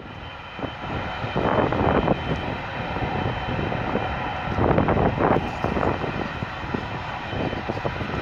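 Jet engines of a twin-engine widebody airliner running at taxi power as it lines up on the runway: a steady rumble with a faint high whine. Gusts of wind buffet the microphone, loudest about a second and a half in and again around five seconds in.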